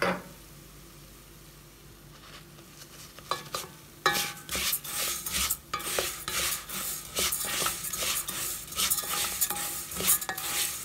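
A wooden spatula stirring dry rice and vermicelli in a metal pot, grains scraping and rattling against the pot in rapid strokes with a light sizzle, as they toast in the fat. A single knock at the very start, then quiet until the stirring starts about three to four seconds in.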